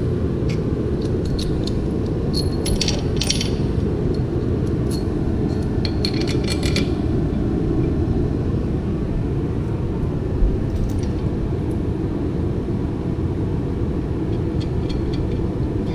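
Steel parts and tools of a tractor planetary gear set clinking together in a few short bursts as it is taken apart, over a steady low rumble.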